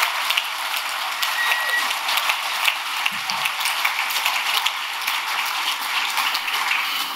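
Audience applauding steadily: a dense patter of many hands clapping, with a short high whistle from the crowd about a second and a half in.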